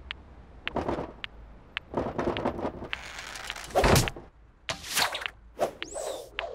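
Cartoon sound effects: ticks about twice a second, then a run of whooshes, clicks and knocks, with a loud thump about four seconds in and a quick swooping tone near the end.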